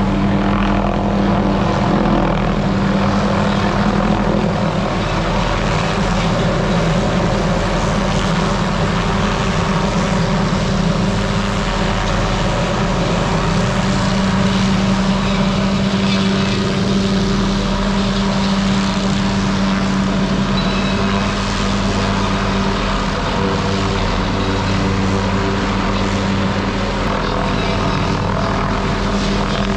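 A small engine running steadily at an even, unchanging pitch.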